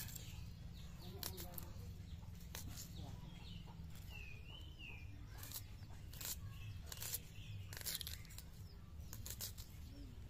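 Knife cutting and peeling small red onions by hand: irregular crisp clicks and snaps of the blade through the onion and its papery skin. A bird chirps briefly near the middle.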